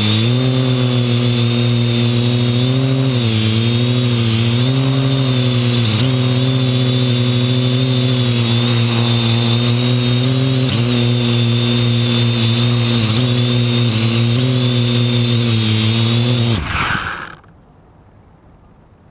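Parrot AR.Drone quadcopter's motors and propellers running in a low hover: a buzzing hum with a high whine above it, its pitch wavering up and down as the throttle changes. Near the end the drone lands and the motors wind down in pitch and stop, leaving only a faint hiss.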